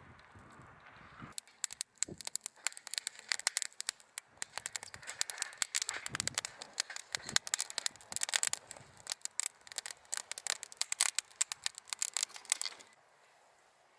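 Crinkling and rustling of plastic packaging being handled, a dense, irregular run of crackles starting about a second in and stopping near the end.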